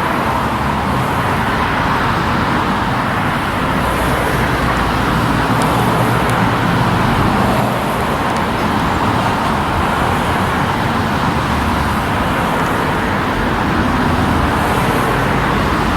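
Steady, even rush of vehicle noise, like road traffic, with no single vehicle standing out.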